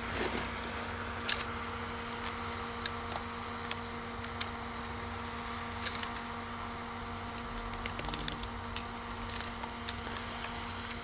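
A steady low hum with a few faint, scattered clicks.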